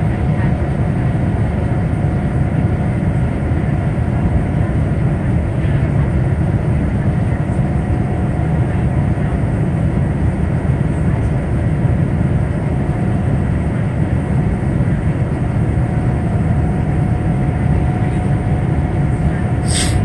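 Steady cabin roar of a Boeing 787-9 in its climb after takeoff: engine and airflow noise heard from inside the cabin, heavy in the low end, with a faint steady tone above it. A single short click sounds near the end.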